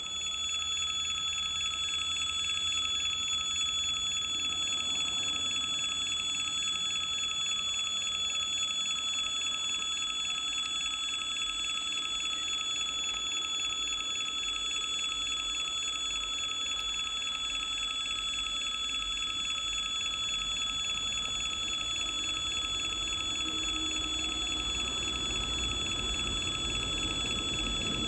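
Level-crossing warning signal sounding, a steady high electronic tone with several pitches at once. Near the end the low rumble of the approaching 2TE10 diesel locomotive rises beneath it.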